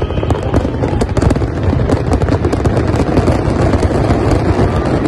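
Fireworks display: a dense, rapid barrage of overlapping bangs from many shells bursting at once, with no let-up.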